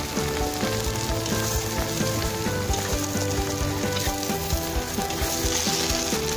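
Carrot strips sizzling steadily as they fry in hot oil in a cast-iron kazan for plov, with a metal skimmer scraping and stirring them through the pot.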